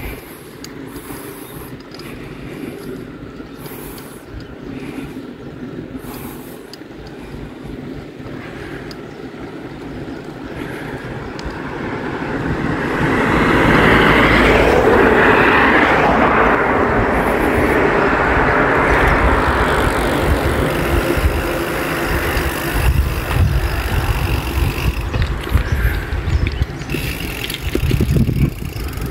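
Wind rushing over the microphone of a moving bicycle, with a vehicle passing on the road: a broad rushing noise swells about halfway through and slowly fades.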